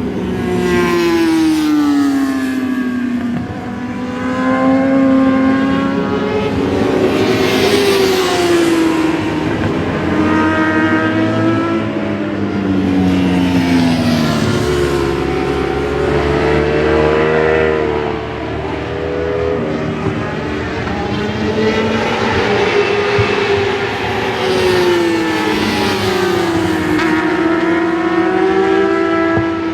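Racing motorcycles (superbikes, supermotards and naked bikes) passing one after another through a corner at full exhaust, engines revving up and dropping in pitch through gear changes, often several bikes heard at once.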